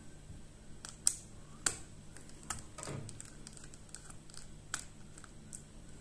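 Small screwdriver clicking and tapping on the laptop's motherboard screws and metal frame while backing the screws out. A few sharp clicks, the loudest about a second in, among lighter, scattered ticks.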